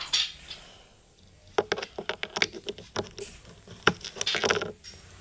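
Handling noise from a small pocket tool: an irregular run of sharp clicks and taps, with the loudest one nearly four seconds in.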